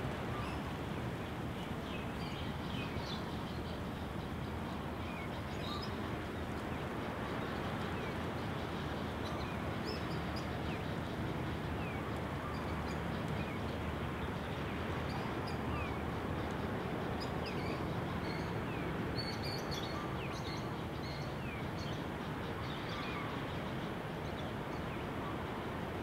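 Small birds chirping and calling, with many short high notes and quick downward-sweeping chirps scattered throughout, over a steady rushing background.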